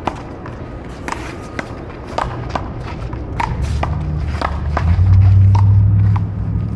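Sharp knocks of a ball struck by paddles and bouncing during a rally, about two a second, over a low rumble that swells about four seconds in.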